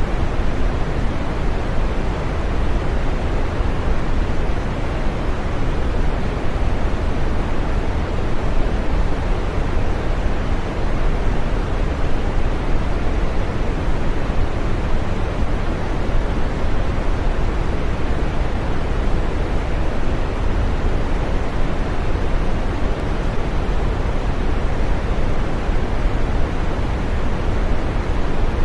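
Synthetic green noise: a steady, even rushing sound, fuller in the deep and middle range than a hiss, and unchanging throughout.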